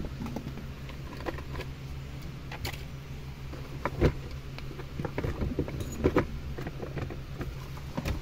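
Scattered clicks and knocks of the black plastic centre-console trim around a 2014 Toyota Fortuner's gear shifter being handled and removed, a dozen or so short knocks spread irregularly through the stretch.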